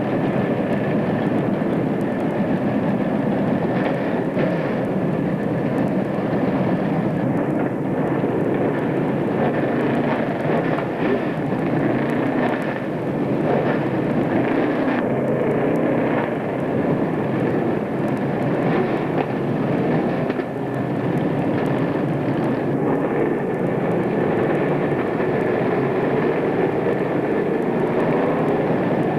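Dirt-track race cars running together around the track, their engines blending into a steady, continuous drone.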